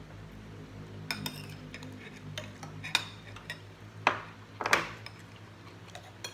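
Metal spoons and forks clinking and scraping against plates and bowls during a meal, several sharp clinks, the loudest a little before the five-second mark, over a low steady hum.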